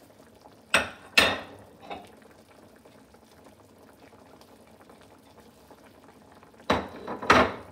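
Hamburg steaks simmering in a thin ketchup sauce in a frying pan, a faint steady bubbling. Loud, sharp knocks break in twice about a second in and twice more near the end.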